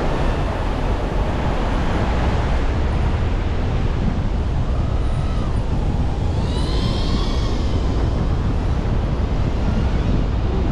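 Steady wind noise buffeting the microphone, with a few faint gliding tones near the middle.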